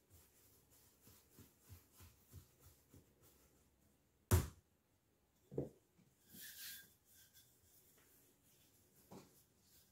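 Hands working a ball of cookie dough on a floured table: faint soft pats and taps, then a sharp knock about four seconds in, a duller thud a second later, a brief hiss, and another knock near the end.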